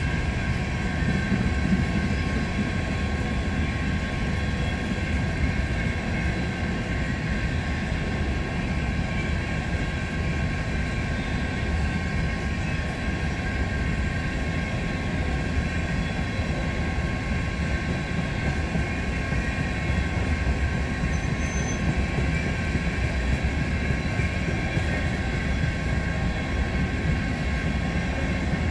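Empty coal hopper cars of a freight train rolling past: a steady rumble of steel wheels on rail, with a thin steady whine riding over it.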